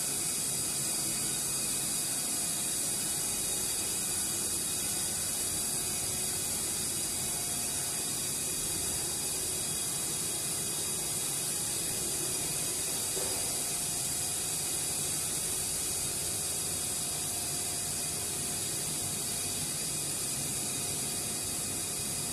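Steady, bright hiss with faint steady tones underneath, holding an even level throughout.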